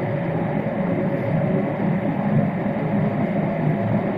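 Steady cabin noise of an airborne Boeing 787-8, heard from a window seat beside the wing: the low rumble of its GEnx-1B turbofans and rushing air, with a few faint steady tones above it.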